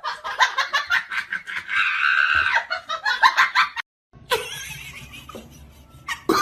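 A person laughing in quick repeated bursts, with a higher squealing stretch in the middle; about four seconds in it cuts off abruptly and gives way to a quieter sound.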